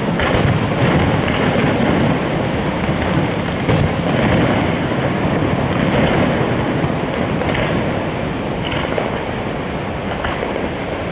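Fireworks display: aerial shells bursting with sharp bangs every second or two over a steady, dense roar.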